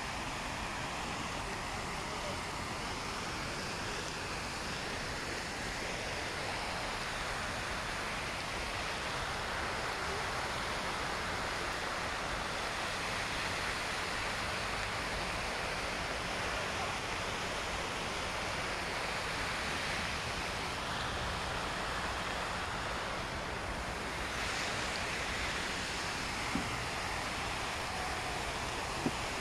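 A large public fountain's many water jets splashing steadily into the basin.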